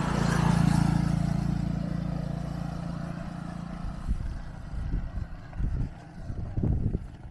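An engine running steadily as it passes, loudest at the start and fading away over about four seconds. Irregular low thumps follow.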